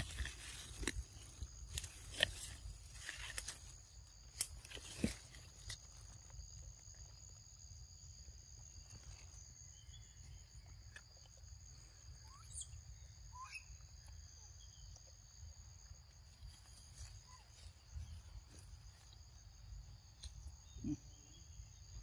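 Quiet forest ambience: a steady, high-pitched insect drone throughout, with a few soft clicks and knocks in the first few seconds and faint, scattered chirps later.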